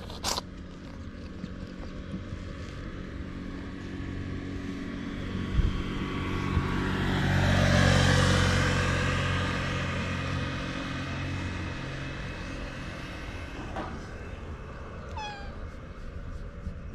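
A motor engine passes by, growing louder to a peak about halfway through and then fading away. Near the end a cat meows once, short and falling in pitch.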